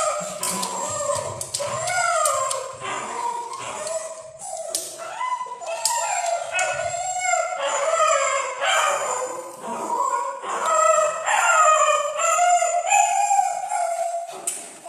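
A frightened puppy whining and yelping over and over, in a string of short rising-and-falling cries with hardly a break.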